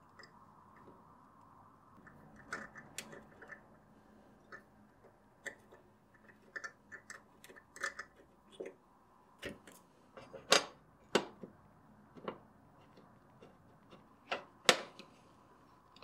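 Small metal hand tool clicking and tapping against a steel safe door and dial ring: irregular light clicks, with a few sharper taps in the second half.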